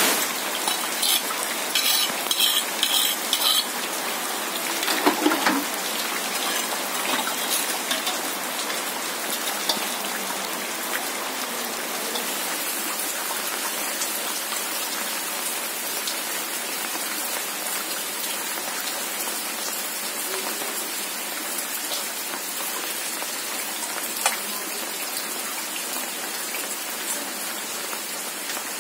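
Steady rain falling, an even hiss throughout. A short run of clicks and knocks comes in the first few seconds, and a single click comes later.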